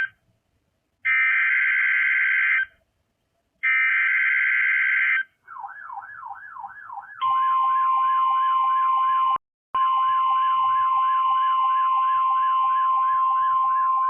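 Emergency Alert System SAME header: buzzy digital data bursts about a second and a half long, repeated with short gaps. Then a warbling alert tone that sweeps up over and over, joined about seven seconds in by a steady high attention tone, with a brief break near ten seconds.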